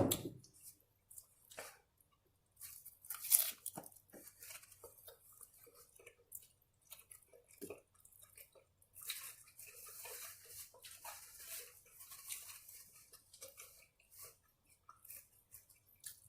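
Close-up eating sounds: crunching bites into hard taco shells and chewing, in scattered bursts with a loud crunch about three seconds in.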